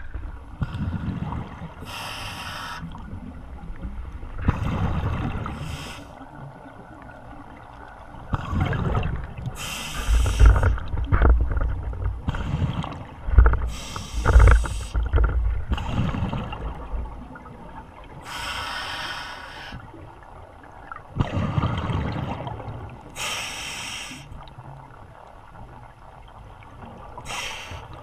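Scuba regulator breathing heard underwater: a diver's breath cycle repeats about every four seconds, each exhalation a hissing rush of bubbles, with lower gurgling and rumbling between the breaths.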